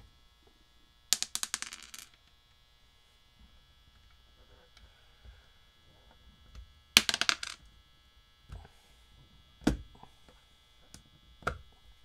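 Small hard parts clattering on a workbench: a quick run of sharp clicks about a second in and a louder one about seven seconds in, then a few single knocks.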